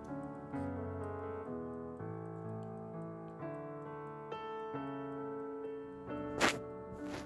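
Background piano music with sustained notes and chords. Near the end come two short bursts of noise, the first of them the loudest moment.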